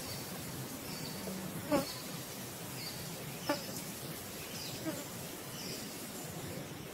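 Steady insect buzzing with short high chirps scattered through; two sharper short calls stand out, a little under two seconds in and about three and a half seconds in.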